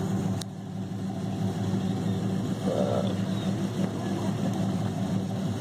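Pickup truck engine running steadily at a fairly even speed, under load during a tow-strap pull on a truck stuck in deep mud.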